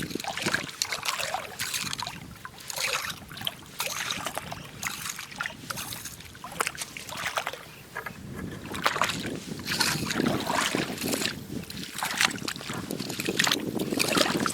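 Irregular splashing and sloshing in shallow seawater as a small shark thrashes while being grabbed by hand.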